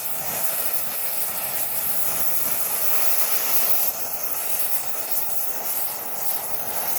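Handheld gas torch burning steadily with a flame roar and hiss, heating a dent in an air-pressurised two-stroke expansion chamber to push the dent out.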